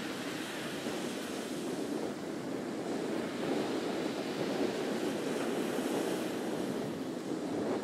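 Ocean surf washing onto a sandy beach, a steady rushing noise that swells and eases gently, with wind buffeting the microphone.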